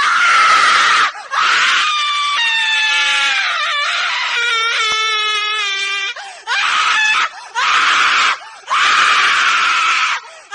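A woman screaming: a sudden short scream, then a long drawn-out one whose pitch wavers and falls, then three shorter screams in quick succession.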